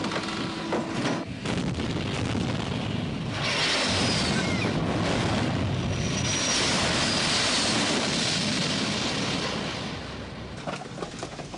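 Low pass of an F-4 Phantom jet fighter over the ship: loud, steady jet noise that rises about three seconds in, holds for several seconds and dies away near the end. A few sharp knocks come before it.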